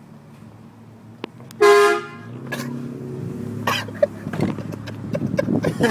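Air horn on a pickup truck giving one short, loud blast of about half a second, a steady tone rich in overtones, over the truck's engine and road noise.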